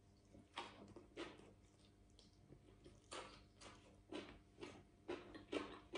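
Faint chewing of a mouthful of sticky rice and spicy cucumber salad: soft, irregular wet clicks and small crunches, a dozen or so spread through the few seconds.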